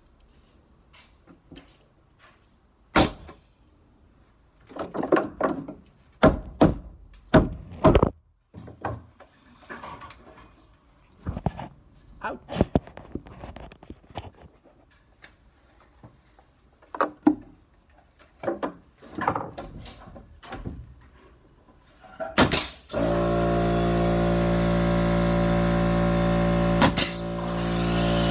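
DeWalt pneumatic coil nailer firing nails into wooden door-frame lumber: a series of sharp shots, most of them in the first eight seconds, with wood knocks and handling noise between. About 23 s in a loud steady motor drone starts and holds, the air compressor that feeds the nailer running to refill.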